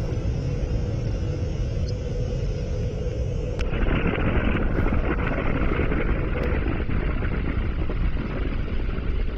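Deep, steady rumble of a nuclear explosion's blast. About three and a half seconds in there is a sharp crack, and a hissing rush joins the rumble.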